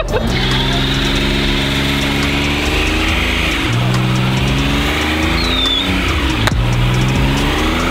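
Compact pickup truck's engine held at high revs during a burnout, the revs sagging and climbing again several times over the noise of the rear tyres spinning. A single sharp pop about six and a half seconds in.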